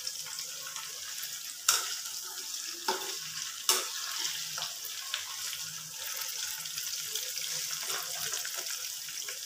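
Marinated boneless chicken pieces deep-frying in oil in a kadai over a low flame: a steady high sizzling hiss. A few sharp clinks of a metal wire-mesh skimmer against the pan, most clearly about two, three and four seconds in.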